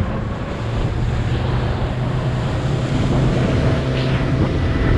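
Suzuki 200 hp outboard motor running under throttle as the boat gets underway, mixed with wind buffeting the microphone and water rushing past the hull. It grows a little louder in the first second or so.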